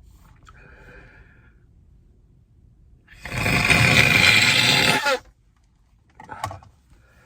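A congested nose being blown hard and wet, one long honking blow of about two seconds starting around three seconds in, then a brief second burst near the end. The nose is blocked with a head cold.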